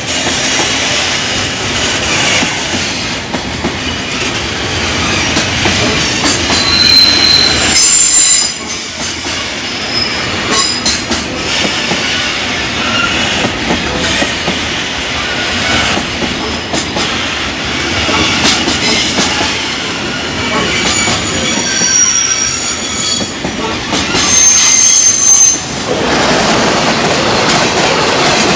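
Container wagons of a long JR freight train passing at close range, wheels clattering over the rail joints. Several brief high-pitched wheel squeals come through now and then. Shortly before the end the sound changes as another freight train passes.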